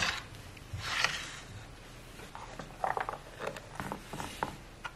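Wooden cutting board being set down and shifted on a stone countertop: two short scraping swishes about a second apart, then a few soft, scattered clicks and taps.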